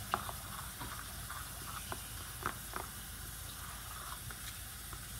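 Metal spoon stirring a thick, foamy mix of glue and shaving cream in a bowl: soft wet squishing with a few light clicks of the spoon against the bowl.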